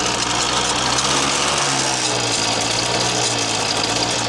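Small motorcycle engine running steadily through a silencer just cleared of carbon by burning it out. The exhaust note is one that is said to sound much better than before the cleaning.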